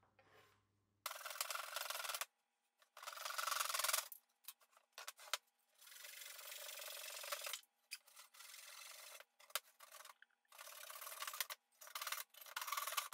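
Hand saw cutting through a wooden board: a series of rasping strokes, each lasting one to two seconds, with short pauses between them.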